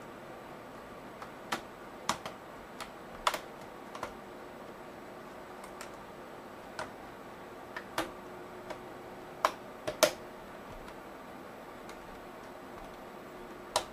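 Plastic hinge cover and power-button panel of a Dell Latitude D620 laptop being pressed down and snapped into place: about a dozen irregular sharp clicks, the loudest about three and ten seconds in.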